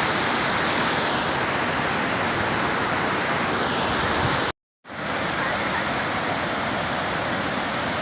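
Kuang Si waterfall cascading: a loud, steady rush of falling water, broken once about halfway through by a brief cut to silence.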